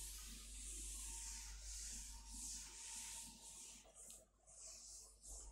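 A cloth wiping chalk off a chalkboard: a string of faint, short swishing strokes, one after another.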